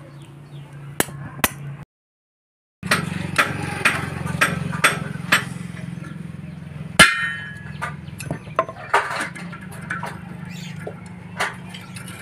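Hand hammer striking steel tools at the bearing hub of a disc harrow gang: a run of sharp metallic knocks, about two a second, with one loud ringing clang about seven seconds in. The work is part of replacing a bearing that failed because it had not been greased. A steady low hum runs underneath, broken by a silent gap of about a second near the start.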